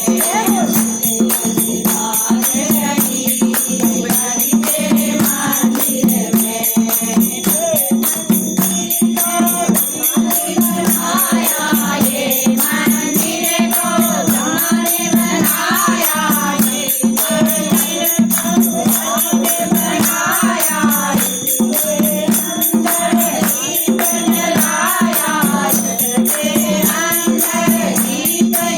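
Hindu devotional temple music: a group of voices singing or chanting over a steady drone, with fast, continuous rattling or jingling percussion.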